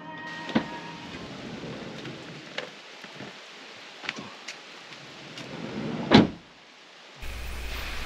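Steady rain falling, with scattered drip-like ticks and a loud knock about six seconds in.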